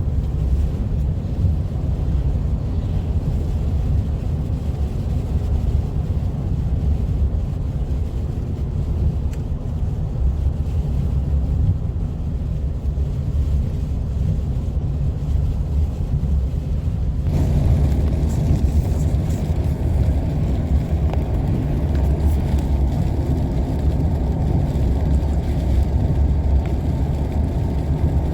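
Road noise inside a moving car on snowy, wet roads: a steady low rumble of tyres and engine with a hiss above it. About two-thirds of the way through the sound turns abruptly brighter and hissier and stays that way.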